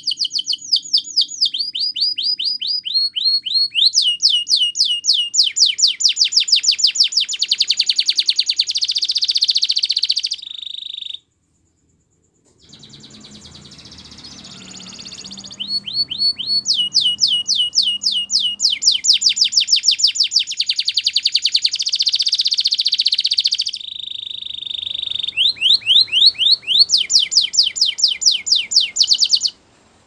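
Canary singing long rolling trills: fast runs of repeated high, falling notes that change speed and pitch from one run to the next. The song stops for a couple of seconds about eleven seconds in, then picks up again with a second long phrase.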